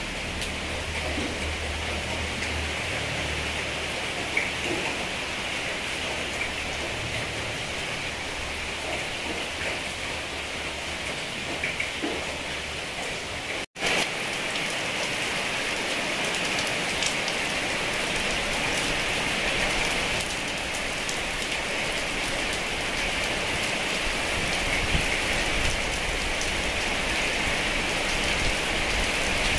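Heavy rain falling steadily, with scattered sharper drop ticks. The sound cuts out for an instant about halfway through.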